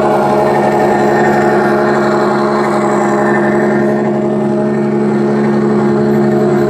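Steady, unchanging engine drone of a radio-controlled scale model army truck, the simulated engine sound of its on-board sound module.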